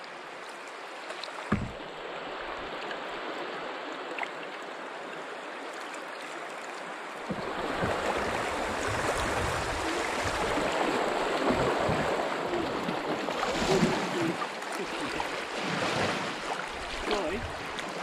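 Open canoe running easy riffles: river water rushing and splashing around the hull, growing louder and rougher from about seven seconds in. A single knock comes about a second and a half in.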